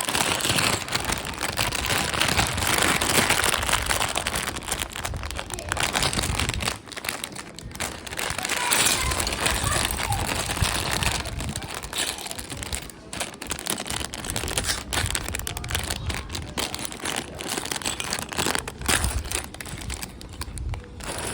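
Dense crinkling and rustling of plastic, full of small clicks, as Lego pieces and their plastic packaging are handled.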